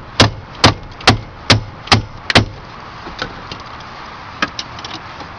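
Hammer blows on the car, about two a second: six sharp strikes in the first two and a half seconds, then a few lighter knocks.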